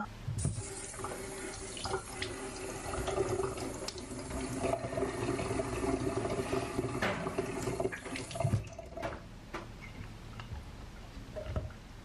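Water running from a tap into a stainless steel kitchen sink in a steady stream. It shuts off about eight and a half seconds in.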